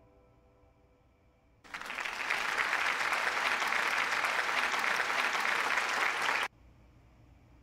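Applause, starting suddenly about two seconds in and cutting off abruptly about five seconds later, like an edited-in sound clip.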